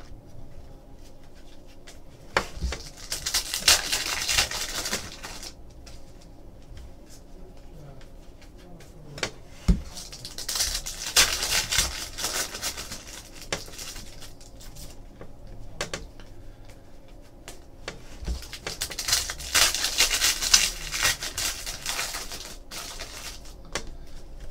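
Foil trading-card packs being handled and torn open, their wrappers crinkling in three separate bursts of crisp rustling, with quieter shuffling of cards between.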